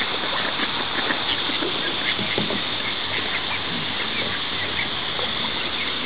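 A mass of fish gaping and gulping at the water surface with ducks feeding among them: a busy, continuous wet splashing and smacking.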